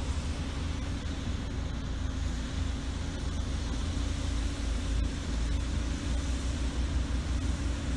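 Diesel engines of heavy earthmoving machinery running at work, heard as a steady low rumble.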